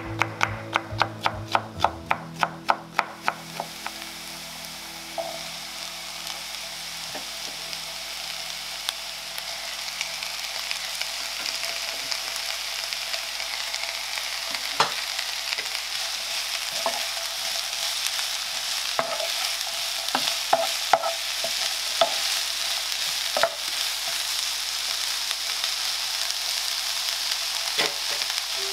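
A chef's knife chopping red bell pepper on a wooden board in rapid, even cuts, stopping about three seconds in. Then diced red pepper and red onion frying in a pan, a steady sizzle that slowly grows louder, with occasional clicks of a spatula stirring.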